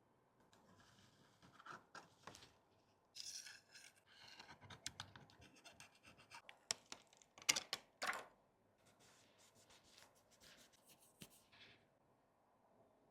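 Hand tools and fingers scratching and scraping on an iPhone 14 Pro Max during a cracked back-glass repair, irregular, with scattered sharp clicks. The loudest cluster of scrapes comes a little past the middle.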